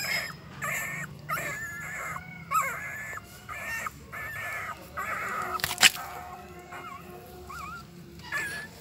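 Newborn puppies squeaking and whimpering while nursing: many short high calls in quick succession, some sliding in pitch. A single sharp click about six seconds in.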